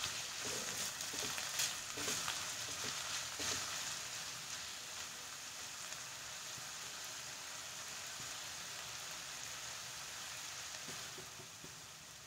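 Sliced onions sizzling in oil in a kadai over a low flame, softening toward translucent. A steel ladle scrapes and clicks against the pan during the first few seconds, then the sizzle carries on alone and eases off near the end.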